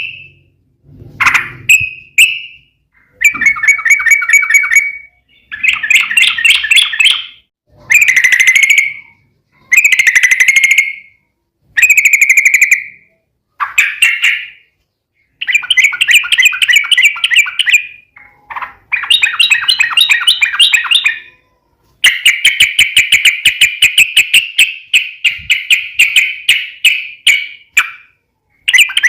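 Trucukan (yellow-vented bulbul) singing: about a dozen bouts of fast-repeated, high-pitched chattering notes, most lasting one to two seconds, with one long run of about six seconds in the second half.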